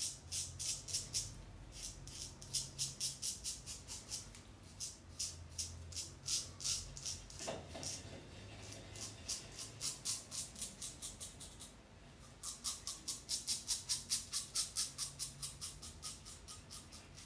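Razor scraping through stubble in quick, short, scratchy strokes, about five a second, in runs of a few seconds with brief pauses between them.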